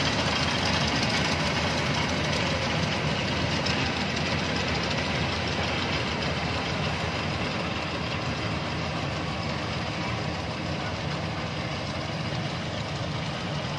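Rice combine harvester engine running steadily, with dense mechanical noise that fades slightly over the stretch.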